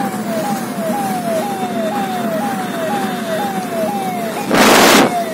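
A siren-like electronic tone, falling in pitch and repeating about twice a second, over a car's steady road noise. About four and a half seconds in, a loud half-second rush of noise cuts across it.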